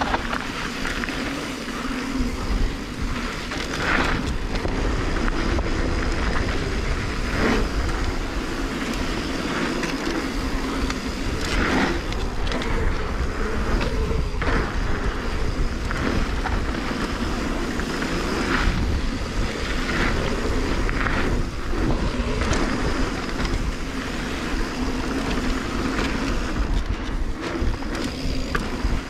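Mountain bike rolling fast down a packed-gravel flow trail: steady tyre noise on the dirt with a deep rumble, broken every few seconds by sharp knocks and rattles from the bike over bumps.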